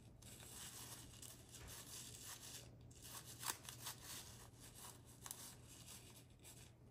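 Faint rustling and a few light clicks of hands handling a plastic bag of diamond painting drills, one click a little sharper about three and a half seconds in, over a low room hum.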